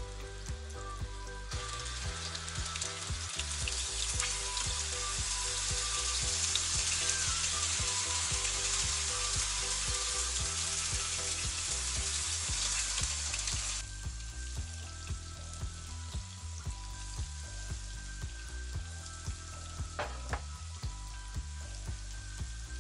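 Fava beans shallow-frying in hot oil in a pan, a steady sizzle that turns much louder about a second and a half in and falls back to a softer sizzle a little past halfway. There is one sharp tap near the end.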